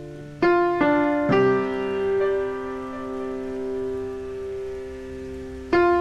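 Background piano music: three notes struck in quick succession about half a second in, left ringing, then a new phrase beginning near the end.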